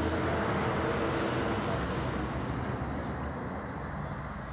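Street noise with a motor vehicle's engine running, slowly fading.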